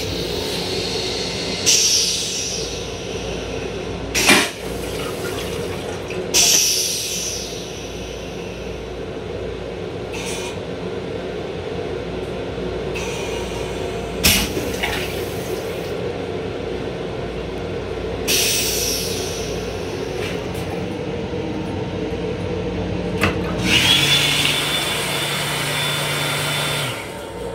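The steady rumble and hum of an M7 commuter railcar running, heard from inside its restroom. It is broken by several short, loud bursts, among them the stainless-steel toilet flushing. Near the end the sink faucet runs steadily for about three seconds.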